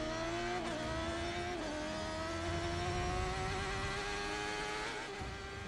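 Racing motorcycle engine accelerating hard at full throttle, its note rising steadily, with two brief drops in pitch in the first two seconds as it shifts up a gear.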